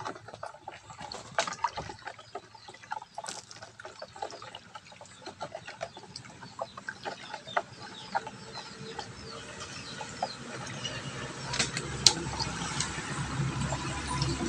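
A plastic spatula stirring shredded jackfruit in coconut milk in a plastic basin: irregular small clicks and scrapes against the basin with wet sloshing. The stirring grows busier and louder over the last few seconds.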